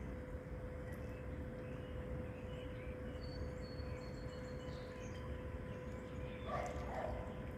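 Ducks feeding in a creek, with a couple of short raspy duck calls near the end, over a steady low outdoor rumble with a faint steady hum and a few faint bird chirps.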